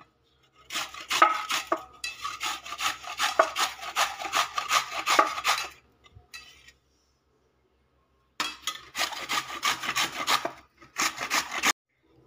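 Peeled raw mango rubbed back and forth on a stainless-steel flat grater: a rasping scrape at about three strokes a second, in two runs with a pause of a couple of seconds between them.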